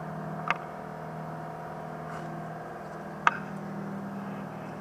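Steady machine hum with two short, sharp clicks, one about half a second in and one near three and a half seconds in.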